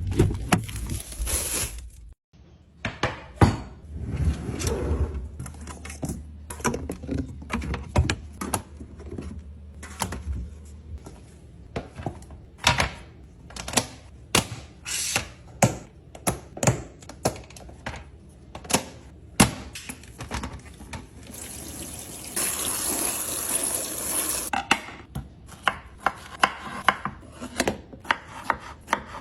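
Food containers, packets and fruit being handled and set down one after another: a run of sharp clicks and knocks. A steady hiss lasts about two seconds near the end.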